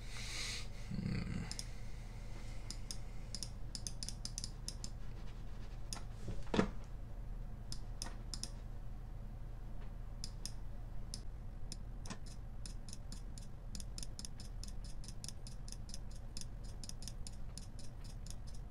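Computer mouse clicking: scattered clicks at first, then a steady run of two or three clicks a second as stars are dotted onto a digital canvas one by one. A single soft thump comes about six and a half seconds in, over a steady low hum.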